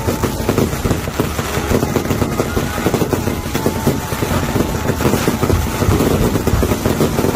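Fireworks going off in a rapid, continuous barrage of crackling and popping over a low rumble.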